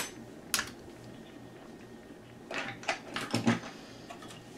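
Faint handling noises of the opened DVD-VCR being worked on by hand: a single click about half a second in, then a short cluster of clicks and scrapes about three seconds in, over a faint low hum.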